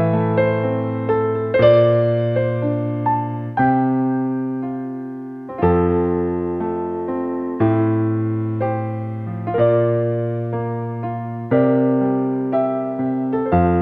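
Background music: a slow solo piano piece, with each note struck and fading and a new chord about every two seconds.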